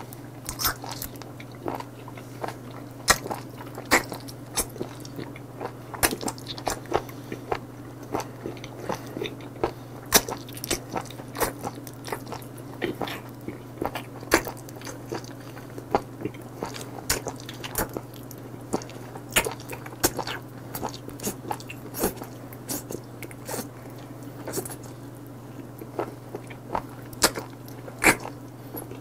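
Close-miked chewing of a live mud octopus, its tentacles still hanging from the mouth: irregular sharp wet clicks and smacks, several a second, over a steady low hum.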